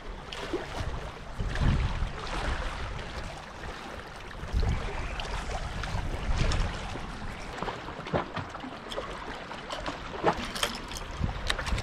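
Gusts of wind buffeting the microphone over small waves lapping against the rocky shoreline, with a few sharp clicks near the end.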